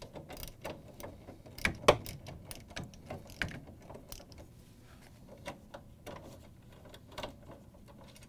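Hand ratchet with a 3/8-inch socket clicking in quick, irregular runs as the bolt holding a refrigerator's front roller assembly is loosened and backed out.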